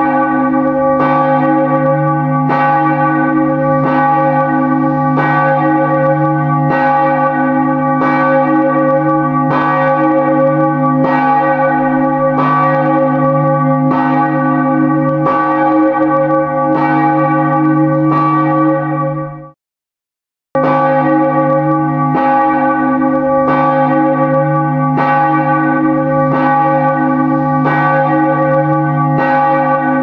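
Church bell tolling about once a second, each stroke ringing on into the next. The ringing cuts off abruptly for about a second two-thirds of the way through, then the strokes start again.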